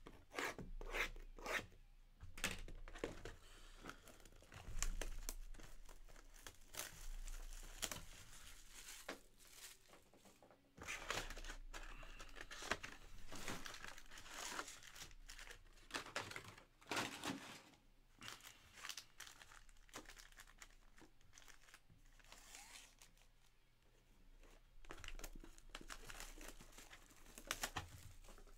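Plastic shrink-wrap being torn and crinkled off sealed trading-card boxes, in irregular scratchy bursts with quieter gaps between.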